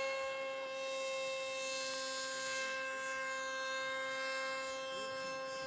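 Steady high electric whine of a radio-controlled model plane's motor at constant pitch, fading slightly as the plane flies off.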